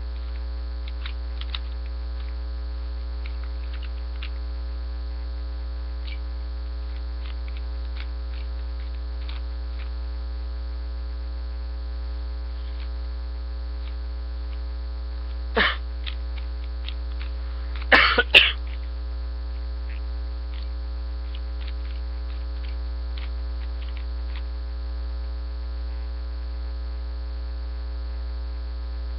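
Steady electrical mains hum with many overtones, picked up by a webcam microphone. A person coughs briefly about halfway through, then coughs twice more loudly a couple of seconds later.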